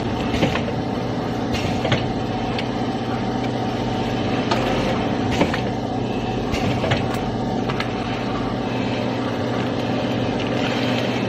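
Fries packaging machine running steadily, a mechanical hum with constant tones, broken by a few scattered sharp clicks.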